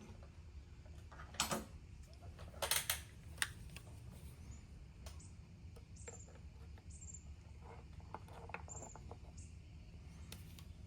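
Metal parts being handled while the oil strainer is pulled out of a motorcycle engine: a few sharp clicks and knocks in the first few seconds, then faint short high squeaks and ticks.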